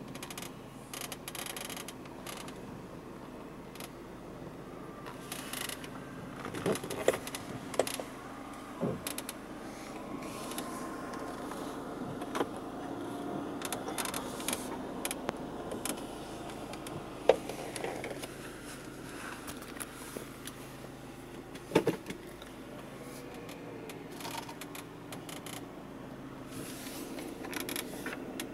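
Dashboard squeak on the driver's side of a Chery Tiggo 5: short, sharp creaks and clicks a handful of times, over the steady hum of the car's cabin. The squeak appeared on the first day of ownership and its cause has not been found.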